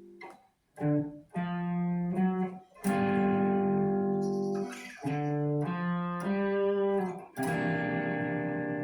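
Electric guitar through an amp playing a chord riff: short chord stabs, a chord held for about two seconds, more short stabs, then a long ringing chord near the end.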